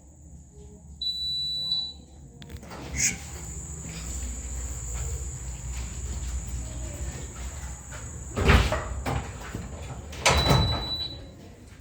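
Smoke alarm giving a single high electronic beep just under a second long about a second in, and a shorter one near the end. In between there is a steady high whine and several loud thumps, the loudest two about eight and a half and ten and a half seconds in.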